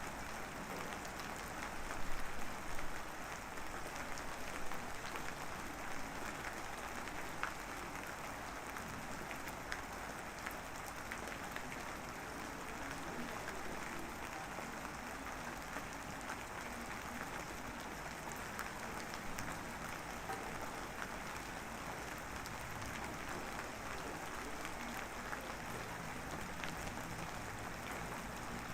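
Light drizzle falling steadily: a dense, even patter of small raindrops, with a few slightly louder drops a few seconds in.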